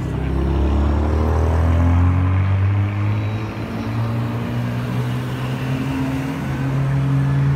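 Sports car engines pulling away at low speed one after another: a low, steady exhaust rumble that rises gently in pitch over the first two seconds.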